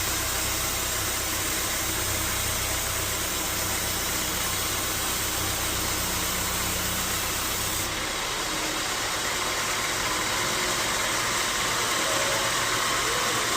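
Bandsaw sawmill running steadily, a constant mechanical noise with a low hum; about eight seconds in the low hum drops away and the noise changes character.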